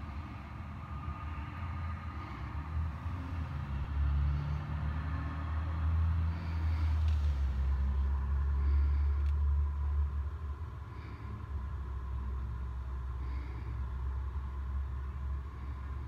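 City traffic: buses and cars running on the street below, a low rumble that swells in the middle and eases off again. A faint high chirp repeats every two seconds or so.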